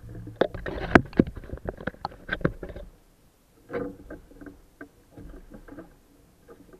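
A clatter of close knocks and bumps, loudest about a second in, from a hand handling the camera and movement on a small boat. Fewer, weaker knocks follow in the second half.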